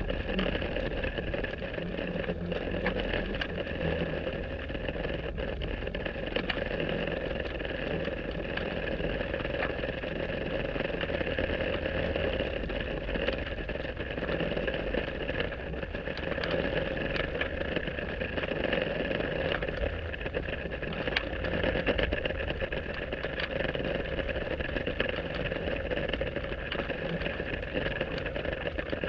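Steady, muffled hum of a boat motor heard underwater through a submerged action-camera housing, with faint scattered ticks.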